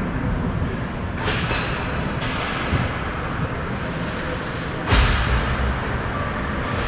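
Ice hockey rink ambience during a stoppage in play: a steady rushing hiss, with sudden louder bursts about a second in and a bigger one with a thud about five seconds in.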